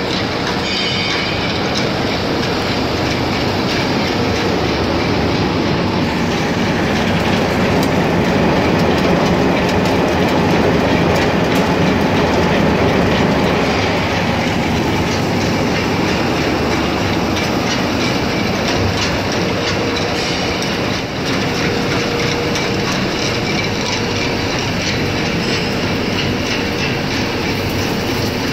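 Tornado Cave Service separator running under load: a dense, steady rattle and rush as road sweepings and forest litter are fed through it and the separated grit and soil pour out, with a steady machine hum beneath.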